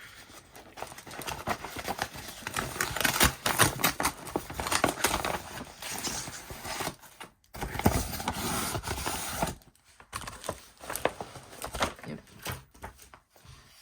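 A parcel's packaging being torn open and unwrapped, with crinkling, rustling and tearing, heaviest in the middle and broken by short pauses.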